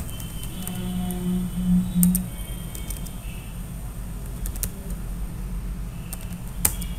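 Typing on a computer keyboard: a handful of separate keystroke clicks, in pairs about 2 and 4.6 seconds in and one sharper click near the end, as a short command is keyed in.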